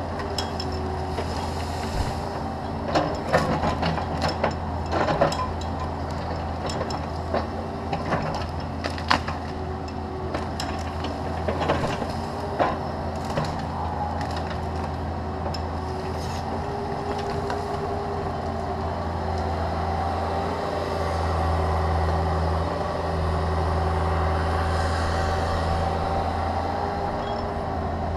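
Caterpillar 305.5E2 mini excavator's diesel engine running steadily under digging load, with a string of sharp knocks and clanks in the first half as the bucket works stump roots and dirt. The engine grows louder for the last several seconds.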